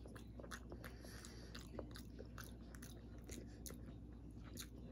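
A person chewing a mouthful of cooked carrot from a beef stew with the mouth closed: faint, irregular soft mouth clicks and squelches.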